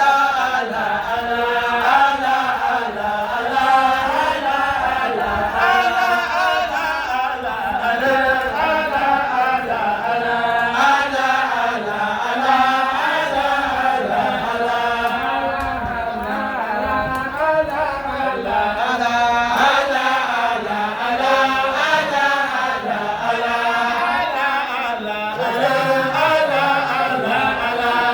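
A group of voices chanting Islamic devotional praise (dhikr) together, a continuous melodic chant that rises and falls without a break.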